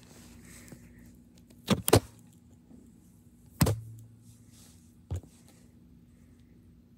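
A few scattered knocks and thumps: two close together about two seconds in, a louder one a little later and a fainter one after that, over a faint steady hum.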